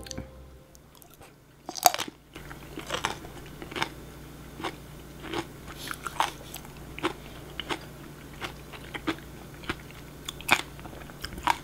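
Close-up chewing of a crisp blanched scallion roll (jjokpa ganghoe): a sharp bite about two seconds in, then steady crunchy chews roughly every 0.7 seconds.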